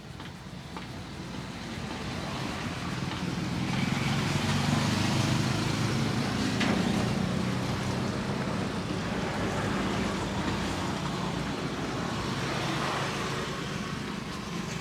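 Road traffic: a motor vehicle's engine grows louder over the first few seconds, is loudest around the middle, then slowly fades.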